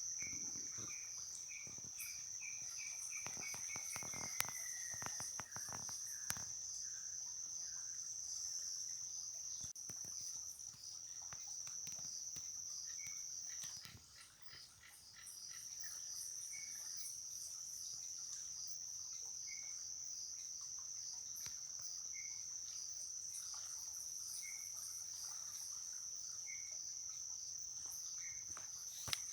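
Evening insect chorus at a riverbank: a cricket's continuous high-pitched trill, which drops out briefly about halfway through. Over it a bird gives a run of short notes that falls in pitch in the first few seconds, then single short calls now and then.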